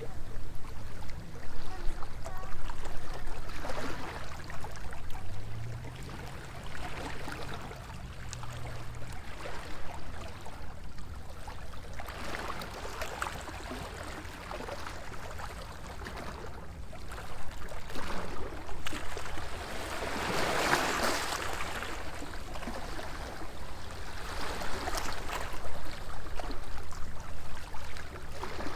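Small waves washing against a stone seawall, swelling and fading every few seconds, the biggest wash about twenty seconds in. A faint low steady hum runs under it for the first third.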